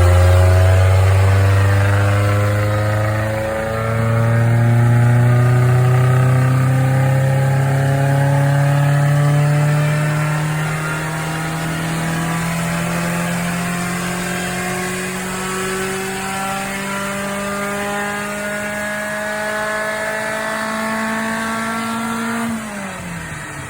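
Mk1 Golf GTI's fuel-injected four-cylinder engine pulling at full throttle on a rolling-road dyno: after a brief dip about three and a half seconds in, the pitch climbs slowly and steadily all the way to the redline. Near the end the throttle comes off and the revs fall away quickly.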